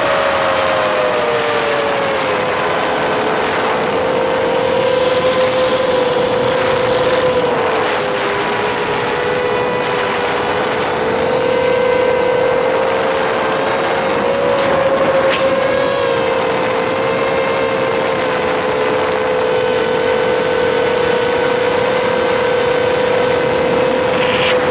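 A 7-inch FPV quadcopter's brushless motors and propellers whine in flight, heard from a camera mounted on the frame. The whine is steady, and its pitch dips a little about 2 and 8 seconds in and rises again around 15 seconds.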